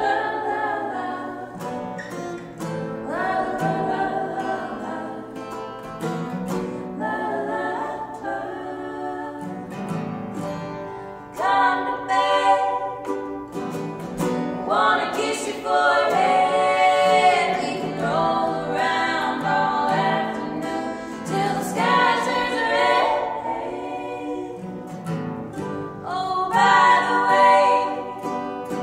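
Acoustic folk song performed live: women singing in harmony over a strummed acoustic guitar and ukulele. It swells fuller and louder about eleven seconds in.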